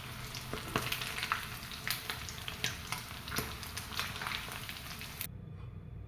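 Food frying in hot oil, a steady crackling sizzle with frequent sharp pops, which cuts off abruptly about five seconds in, leaving a low hum.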